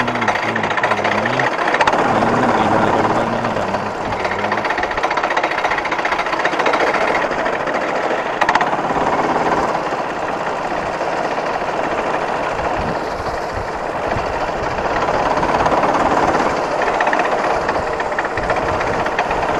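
Rental go-kart's small engine running at speed, with the kart's chassis and steering rattling and vibrating, a loud steady buzz. A pitched engine note wavers up and down in the first four seconds, then is lost under the rattle.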